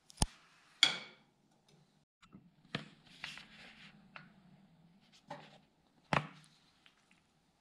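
A few sharp knocks and clinks of hand tools being handled and set down on the tractor's metal housing, one ringing briefly about a second in, with a soft rustle of a shop rag being laid in place around three seconds in.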